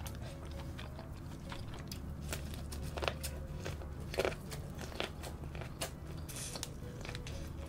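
Close-miked eating: chewing, then biting into corn on the cob coated in cheese sauce, with a handful of sharp crunches between quieter mouth sounds.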